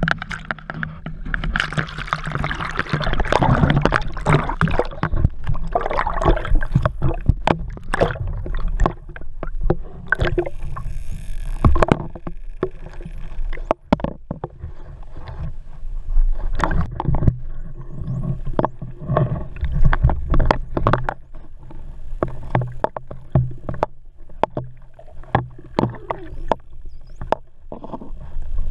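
Dolphins heard underwater: a dense, irregular run of sharp clicks over the rush and churn of seawater around the camera.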